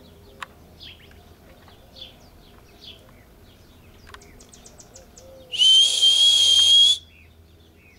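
A person whistling one long, loud, steady note that rises slightly in pitch, about five and a half seconds in, with breath hiss close to the microphone. Faint short chirps come before it.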